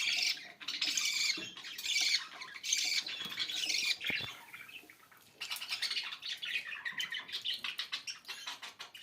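Budgerigars chirping and squawking in short high calls, about one a second at first, then a faster run of chattering from about five seconds in.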